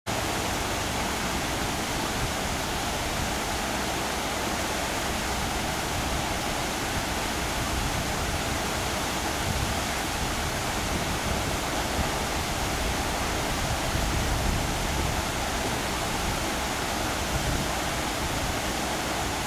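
Water pouring over the edge of a weir, a steady, even rush with no breaks.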